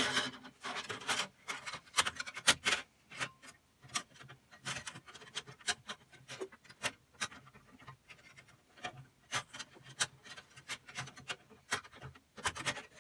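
Irregular light clicks, taps and rubbing as a bandsaw blade is handled and seated by hand on the aluminium wheels of a Ryobi 9-inch bandsaw.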